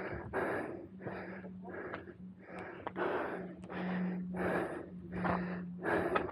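A man breathing hard in fast, heavy puffs, about two a second, winded from climbing a long flight of trail steps.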